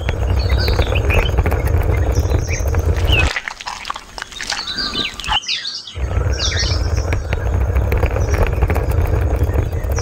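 Birds chirping in short calls over a steady low rumble. The rumble drops out for a couple of seconds a little past the middle, while the chirps carry on.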